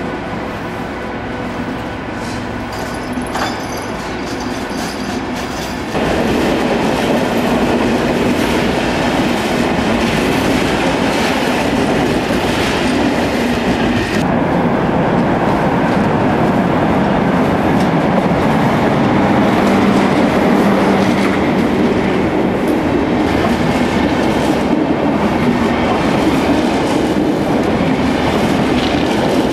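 A train running on the tracks, a steady rumble. It opens quieter, with a steady hum, then the level jumps up suddenly about six seconds in.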